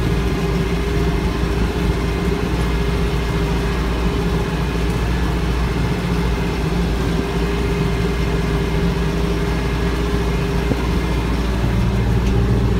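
Branson 4520C tractor's diesel engine running steadily under load while its PTO drives a rear rotary mower through tall grass. The low engine note changes slightly near the end.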